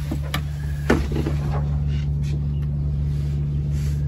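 A sailboat's engine running steadily, a low even drone, with a couple of light knocks in the first second.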